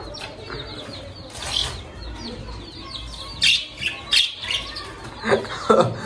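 Chicks peeping in a rapid run of short, high chirps, with a few brief flurries of wing flapping or rustling.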